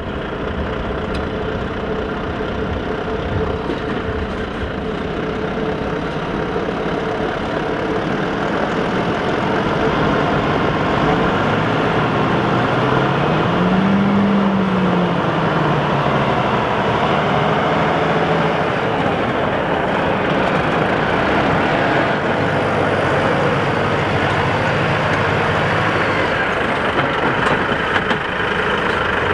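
Volvo FH16 650 timber truck's 16-litre straight-six diesel engine pulling away under a full load of logs. Its revs rise and fall a few times, and it grows louder as it approaches.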